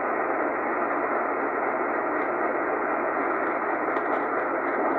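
Tecsun PL-880 shortwave receiver hissing with steady band static in lower-sideband mode on the 80 m amateur band. The hiss is narrow and muffled, cut off above the SSB filter's passband, and no clear voice comes through while it is slowly tuned.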